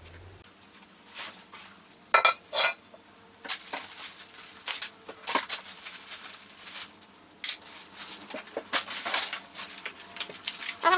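Loose metal drill-press parts and hardware clinking and knocking as they are handled and set down, with irregular sharp knocks, a few of them ringing briefly.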